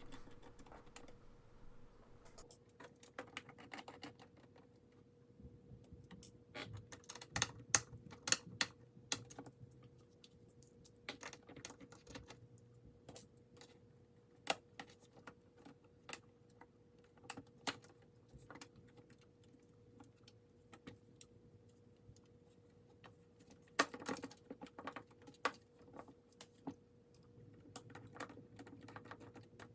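Scattered light clicks and taps of plastic laptop parts and small tools as a ThinkPad T41's screen frame and screws are worked loose, with clusters of quick clicks here and there. A faint steady hum runs underneath.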